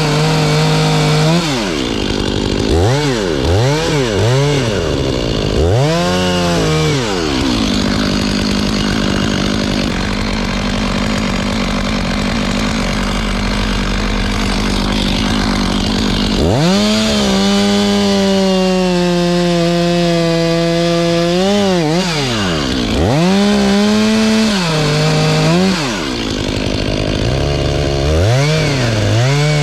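Two-stroke chainsaw revving up and down over and over, with a long stretch of cutting through wood in the middle and the engine held at full speed for several seconds.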